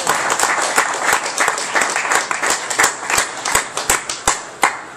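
Audience applauding, with dense individual claps that die away about four and a half seconds in.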